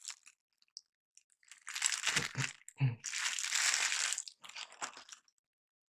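Packaging of a liquid CPU cooler's mounting hardware crinkling as it is handled, in bursts of rustling with a few light knocks about two seconds in.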